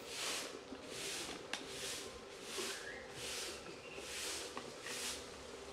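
Insects buzzing in the forest, a high hiss that swells and fades in even pulses about three times every two seconds, with a faint click about a second and a half in.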